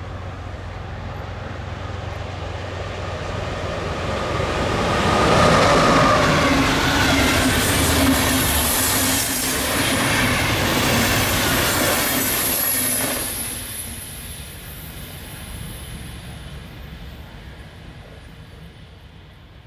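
A DB class 101 electric locomotive hauling a EuroCity passenger train passes by. The rolling noise of its wheels on the rails builds, is loudest from about five to thirteen seconds in as the locomotive and coaches go by, then fades away as the train recedes.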